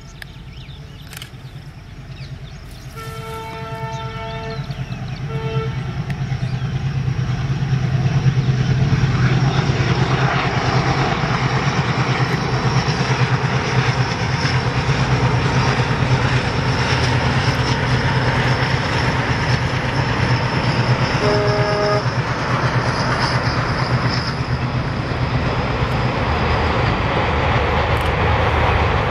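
Twin WDG3A diesel locomotives, with their ALCO engines, hauling a passenger express: a deep engine drone grows louder over the first several seconds and then holds steady as the train passes. The locomotive horn sounds a longer blast and then a short one a few seconds in, and once more briefly about two-thirds of the way through.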